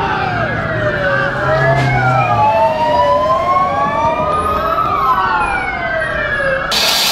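Several emergency-vehicle sirens wailing at once, their slow rising and falling tones overlapping, with a low vehicle hum beneath. The sirens cut off abruptly near the end, giving way to a hissing noise.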